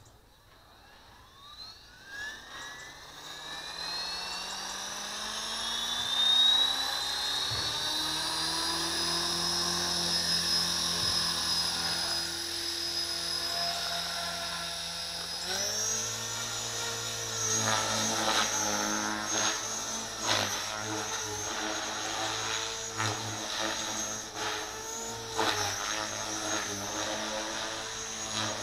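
Electric 450-size RC helicopter with a brushless motor spooling up, its whine rising steadily in pitch over several seconds and then holding. About halfway through the pitch steps up sharply. The whine then wavers and surges with the quick blade-pitch changes of 3D flying.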